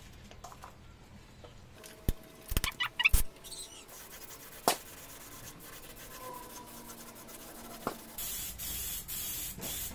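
Gravity-feed air spray gun hissing in short on-off bursts from about eight seconds in, laying on the third coat of top coat. Earlier, a few knocks and clicks about two to three seconds in.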